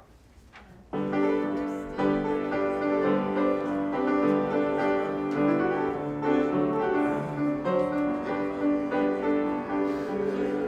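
Piano playing a hymn introduction in slow, sustained chords, starting about a second in after a short hush.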